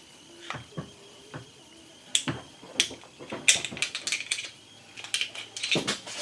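Metal hand tools clicking and knocking against the broken worm screw as it is pried out of its bore: a few separate sharp clinks, then quicker bursts of rattling clicks about halfway through and again near the end.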